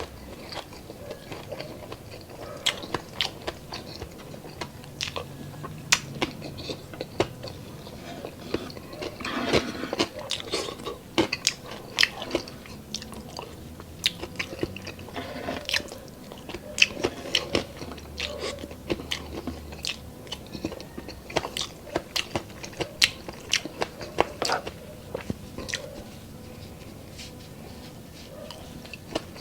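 Close-up chewing and crunching of crispy deep-fried chicharon bulaklak, with many irregular sharp crunches throughout.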